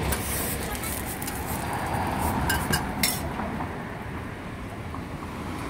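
A metal spatula clinks and scrapes a few times against a flat steel roti griddle and the cart's metal top, over steady street noise.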